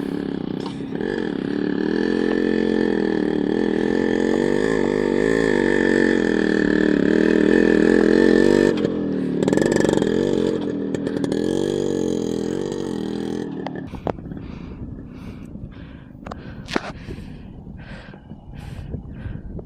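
Yamaha RX 100's two-stroke single-cylinder engine revving hard under load on a hill climb, its pitch wavering up and down. It eases briefly about nine seconds in, pulls again, then fades away after about fourteen seconds, leaving a few faint clicks.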